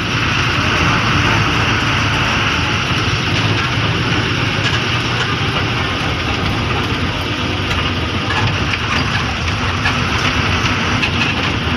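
KSRTC bus's diesel engine running steadily, heard from inside the bus, with a low hum and a constant rush of noise.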